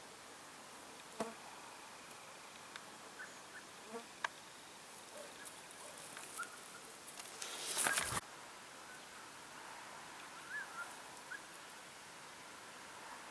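Faint outdoor field ambience with scattered small clicks and ticks, and a brief louder rustle of noise about eight seconds in.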